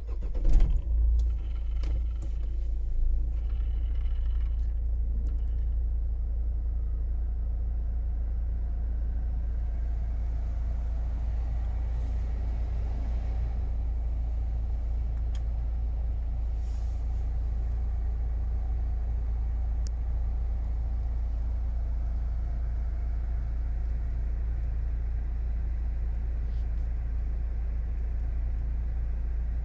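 Opel Astra J's 1.7 CDTI four-cylinder diesel cold-starting at −14 °C: it catches right at the start, flares up about a second in, then settles within a couple of seconds into a steady cold idle.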